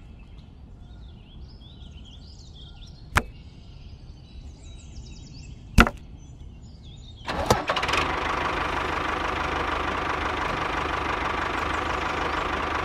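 Two sharp clicks from handling the toy parts, then about seven seconds in a model tractor's motor starts and runs steadily.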